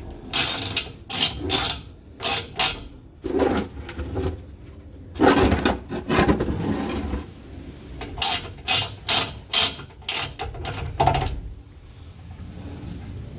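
Irregular metallic clicking and ratcheting of a hand tool working the drain fitting of a truck's air-suspension tank, with a short hiss about five seconds in that fades over a couple of seconds.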